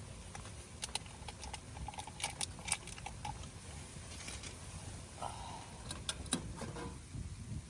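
Light clinks and rattles of small hard objects being handled, a few ringing briefly, scattered over several seconds above a steady low rumble.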